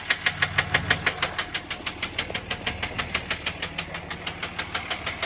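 2006 Dodge Ram's engine idling with a sharp knock repeating evenly about seven times a second. The knock is a sign of an internal engine fault whose cause the owner doesn't know.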